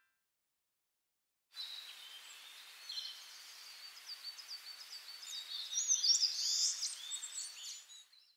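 Birds chirping, many short, quick high calls over a steady hiss of outdoor background. It fades in about a second and a half in, grows busier past the middle, and fades out near the end.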